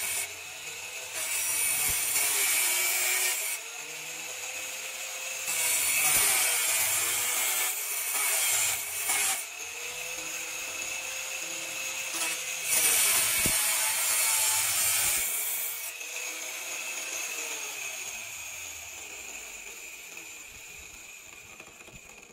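Angle grinder with a thin cutting disc, mounted on a sliding rail, cutting through sheet steel: loud grinding stretches come and go over the motor's steady whine as the disc is pushed through in several passes. Over the last several seconds the cutting stops and the grinder's sound fades away.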